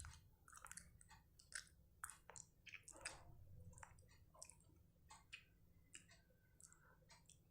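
Near silence with faint, irregular wet mouth clicks from a tongue stuck out and moved left and right.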